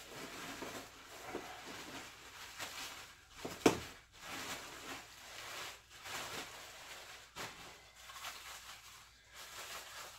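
Clear plastic wrapping crinkling and rustling as it is pulled off a statue base, with one sharp knock about three and a half seconds in.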